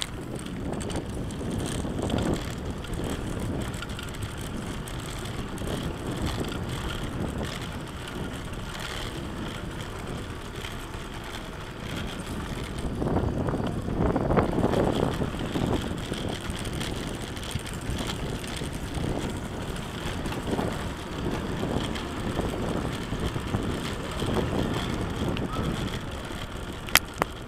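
Recumbent tricycle rolling over cobblestones: a continuous rumble and rattle from the tyres and frame, with wind on the microphone, louder about halfway through.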